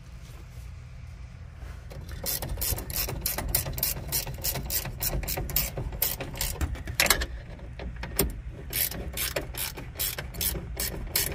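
Ratcheting combination wrench clicking in quick runs as it tightens the fittings on a newly installed brake master cylinder. The clicks start about two seconds in and pause briefly a little past the middle.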